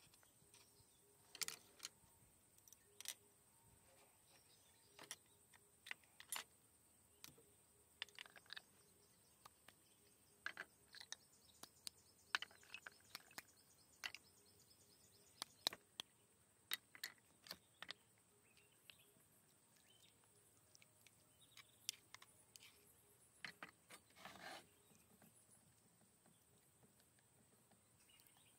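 Scattered light clicks and taps of snail shells and chopsticks knocking against bowls and a pan as cooked snails are handled, over near silence.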